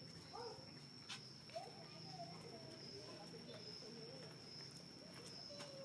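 Faint outdoor ambience: a steady high-pitched tone under many soft, short chirping animal calls, with a few light clicks.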